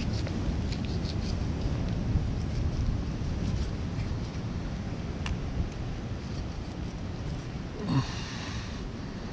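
Steady wind and ocean surf rumbling, with faint scratchy clicks of a filleting knife cutting along a pink snapper during the first few seconds. About eight seconds in, a short sound falls in pitch.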